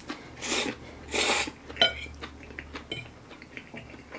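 A person slurping spaghetti twice, about half a second and a second in, then a metal fork clicking a couple of times against the plate.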